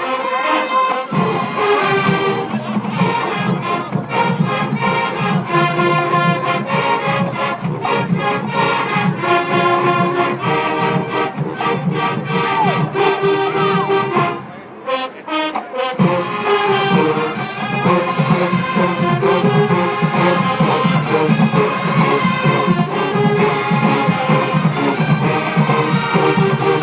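HBCU marching band playing loudly, brass section over a steady drum cadence. The music cuts out briefly a little past halfway through, then the full band comes back in.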